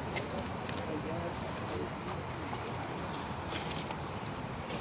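Insects chirring in a dense, steady chorus: a high-pitched, fast-pulsing buzz that keeps on without a break.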